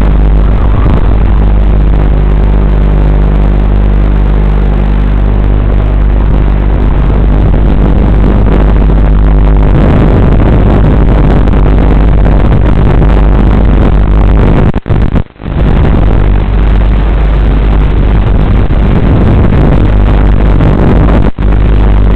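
FPV racing quadcopter's motors and propellers whirring steadily at a loud, buzzing pitch, dropping out sharply for a moment about fifteen seconds in and again near the end.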